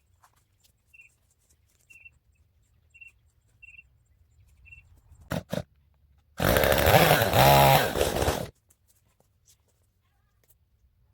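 A goat bleats once, a loud call of about two seconds, about six seconds in, shortly after two sharp clicks. Faint short chirps repeat about once a second before it.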